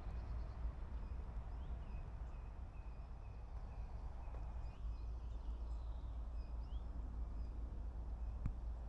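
Outdoor ambience: faint, repeated bird chirps over a steady low rumble, with a single sharp click near the end.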